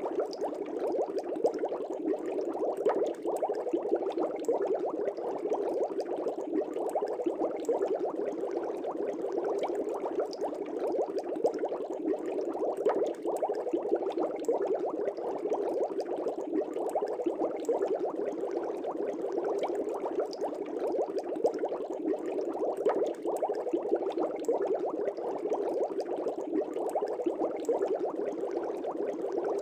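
Aquarium air bubbles rising and breaking at the water surface in a continuous dense bubbling, with many small irregular pops and splashes.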